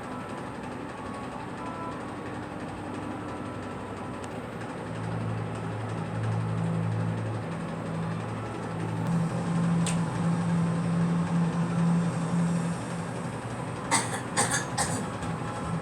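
Steady rumble of a moving vehicle, with a low hum building through the middle. Nearly two seconds before the end, a girl coughs three times in quick succession.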